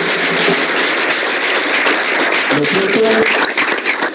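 Room full of people applauding, a dense steady patter of many hands clapping. A man's voice comes through briefly about two and a half seconds in.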